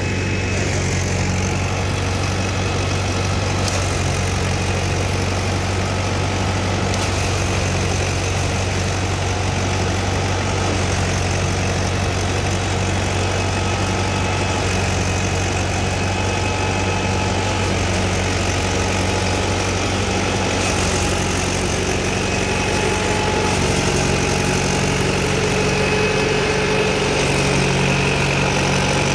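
Tractor engine running steadily under load, driving a threshing machine that is being fed crop sheaves: a continuous low mechanical drone.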